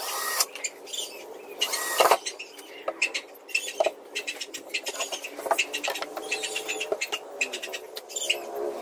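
Handling of a plywood cabinet box and hand tools: scattered light clicks, knocks and small squeaks, with two louder knocks, one at the start and one about two seconds in.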